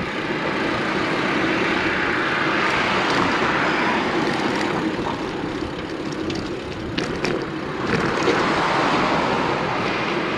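Steady rushing of wind and road noise on a bicycle-mounted camera while riding along a street, with a few light rattles and a car passing near the end.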